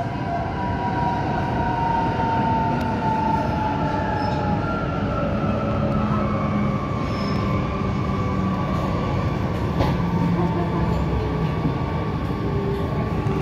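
Alstom Metropolis metro train heard from inside the carriage as it slows into a station: steady running rumble of the wheels on the rails with an electric motor whine that slowly falls in pitch, then a second steady whine from about six seconds in.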